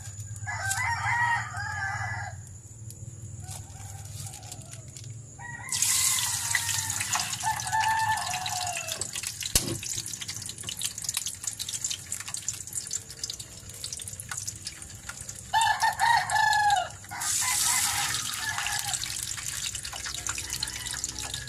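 A rooster crows a few times, near the start, about six seconds in and again near the end. Bursts of hissing start abruptly around the second and third crows.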